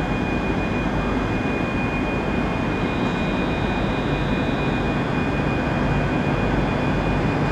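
Class 802 bi-mode train drawing slowly into a platform, a steady rumble and hum with a thin steady whine above it.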